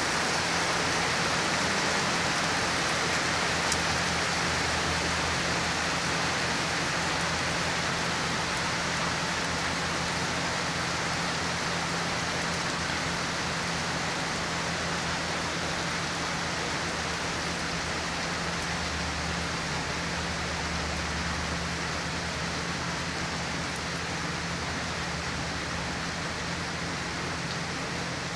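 Steady rain falling on pavement and ground: a constant hiss of drops that eases very slightly toward the end.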